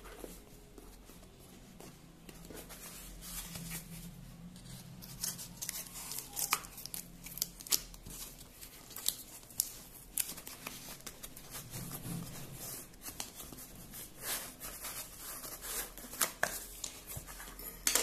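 Small scissors snipping through a paper-and-plastic delivery mailer: irregular short, sharp snips, with the rustle of the packaging being handled.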